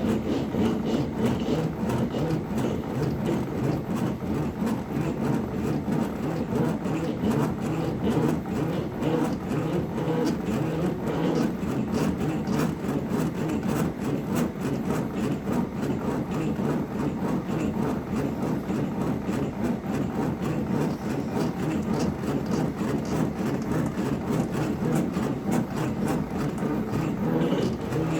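Steady, dense machine noise with a rapid patter of small clicks throughout.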